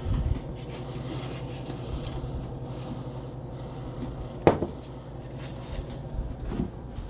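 Microwave oven running with a steady low hum, and one sharp click about four and a half seconds in.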